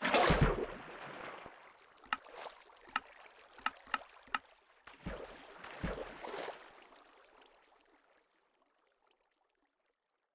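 Water splashing, then about five sharp drops plinking one after another, then a second swell of splashing that fades away.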